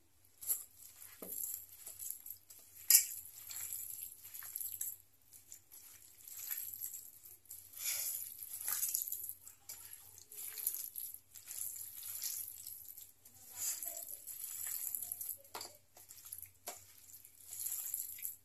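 A hand squeezing and turning raw meat pieces with oil and spices in a steel plate: irregular wet, squelching strokes, with occasional sharp clicks against the metal, the loudest about three seconds in.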